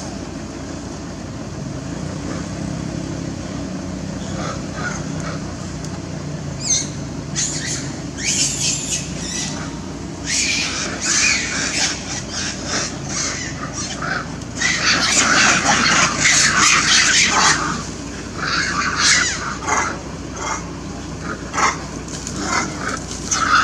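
Macaques screaming in repeated high-pitched bursts, heaviest and loudest in a long stretch about two-thirds of the way through, over a steady low hum.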